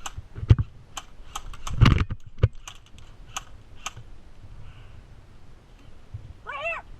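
Airsoft guns firing single shots: about a dozen sharp, irregular clicks and pops over the first four seconds, some with a dull thump. A short call from a voice comes near the end.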